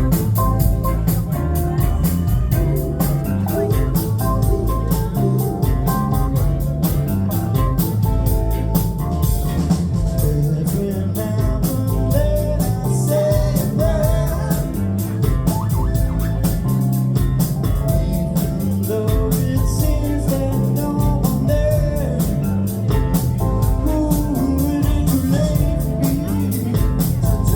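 Live band music played loud with a steady drum beat, bass, keyboards and guitar.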